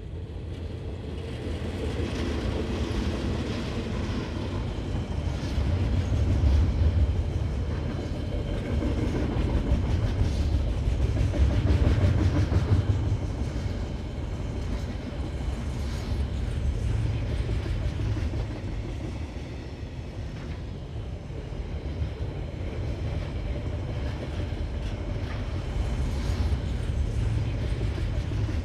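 Freight train passing: a steady low rumble of locomotive and rolling wagons on the rails that swells to its loudest about a third of the way in, then eases to a lower, even run.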